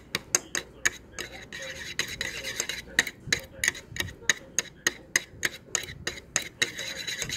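Stainless steel chopsticks clicking and scraping against a dish while stirring wasabi into soy sauce, about four sharp clicks a second with a rubbing sound between them.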